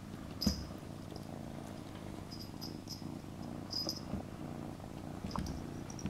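Kitten purring steadily, with one short sharp sneeze about half a second in. A few brief high chirps come later.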